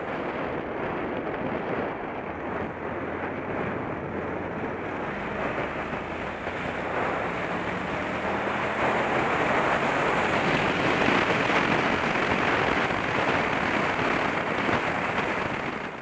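Heavy wind noise buffeting the microphone of a helmet-mounted Contour action camera at road speed on a motorcycle, muffled by a furry MicroMuff windshield but too strong for it to mask out. The rush grows louder after about eight seconds, with a faint engine note underneath.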